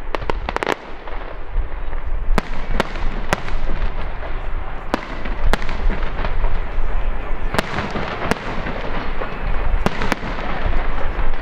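Aerial fireworks display: shells bursting in sharp bangs, a quick cluster in the first second and then one every second or so, over continuous crackling.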